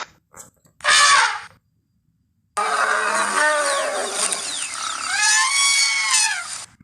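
Woolly mammoth sound-effect calls: a short call about a second in, then after a brief silence a longer call whose pitch rises and falls before cutting off.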